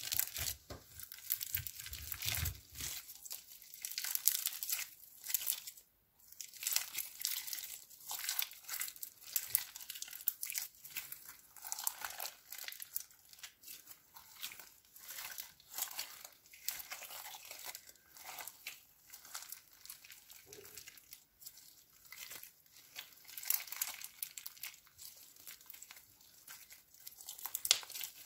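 Foam-bead slime (floam) being kneaded, folded and stretched by hand: a dense, uneven crackle of many small clicks as the beads and sticky slime squeeze and pull apart, swelling and easing with each squeeze.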